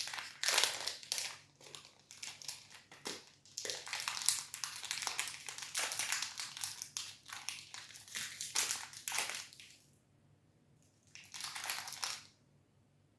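Plastic protein bar wrapper crinkling as it is handled and torn open, in irregular bursts for about ten seconds, then once more briefly near the end.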